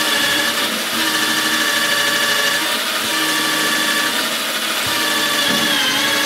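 Cordless drill running steadily as it bores a pocket hole into a board through a Kreg pocket-hole jig. The motor's whine holds steady and dips slightly in pitch near the end.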